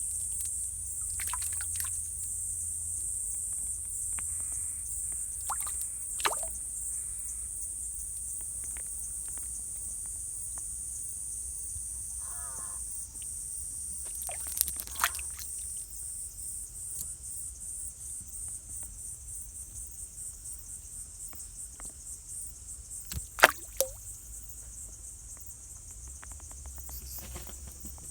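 Insects singing outdoors in a steady high-pitched buzz that takes on a regular pulse in the second half, with a few sharp clicks, the loudest a few seconds before the end.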